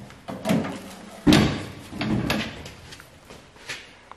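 Metal knocks and clanks as a steel pellet pizza oven's fold-out legs are swung into place and the oven is set down upright on a table; about four knocks, the loudest about a second in.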